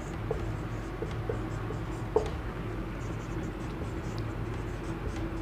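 Marker pen writing on a whiteboard: light scratches and small ticks of the tip on the board, with one sharper tap about two seconds in.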